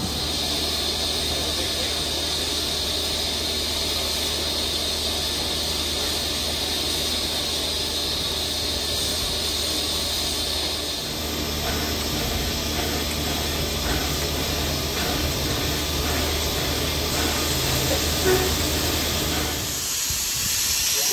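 Steam locomotive 3526 standing with steam hissing steadily from it, over a steady low hum.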